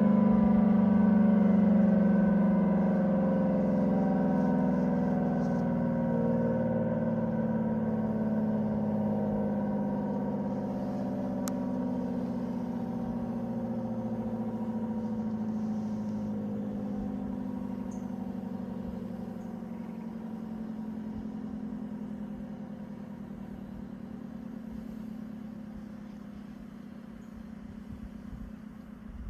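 ACA P-10 tornado siren winding down after a test run: its tone slowly drops in pitch and fades as the rotor coasts down.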